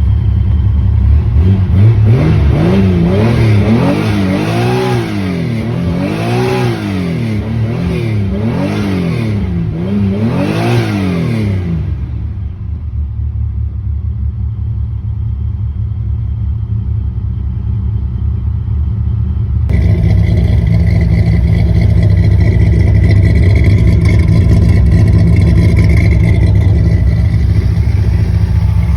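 Nissan L28 2.8-litre straight-six in a Datsun 240Z being blipped about six times, each rev rising and falling back, then settling to a steady idle. About two-thirds of the way through the idle abruptly sounds brighter and louder.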